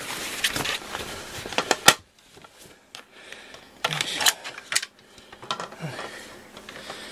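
Handling noises: scattered sharp clicks and rustles, with one loud click about two seconds in. About four seconds in there is a short burst of clatter as a plastic pet bowl is set down on the floor.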